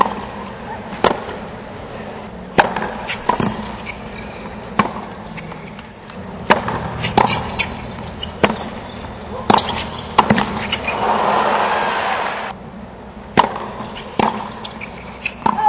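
Tennis ball struck with rackets and bouncing on a hard court during a rally, sharp pops about a second apart. A brief swell of crowd noise about eleven seconds in, then a few more ball strikes and bounces near the end.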